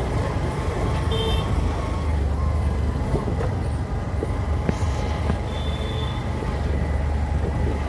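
Motorcycle engine running steadily while riding, a constant low rumble, with two short high tones, one about a second in and one near six seconds.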